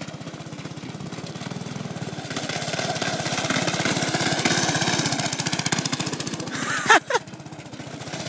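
Go-kart's small engine running with a rapid, even firing pulse as the kart drives through snow and mud, growing louder and then easing off. About seven seconds in, a short sound slides down in pitch.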